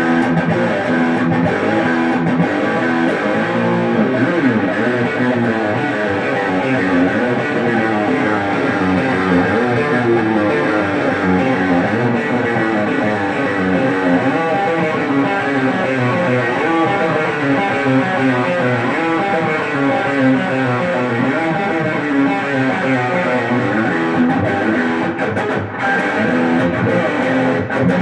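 Electric guitar played through an amplifier and pedal board: a continuous riff of changing notes.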